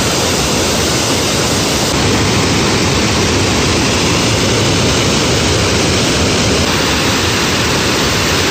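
Loud, steady rush of river water pouring over a waterfall and through rapids.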